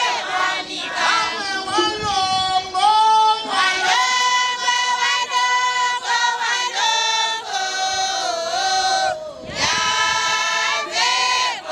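Women's church choir singing sacred music together, held notes moving up and down in steps, with a brief break about nine seconds in.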